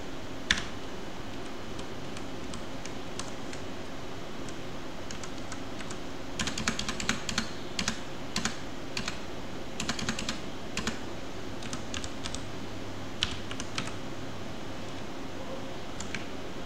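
Computer keyboard typing in short bursts of keystrokes with pauses between, over a steady background hiss.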